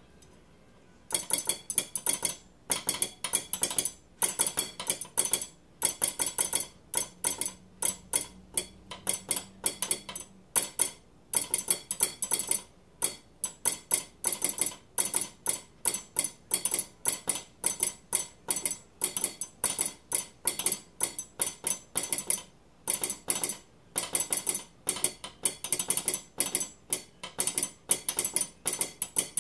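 A metal spoon tapped against a table knife, clicking out telegraph code in quick runs of clicks with short pauses between groups, imitating a railway telegraph sounder. The clicking starts about a second in.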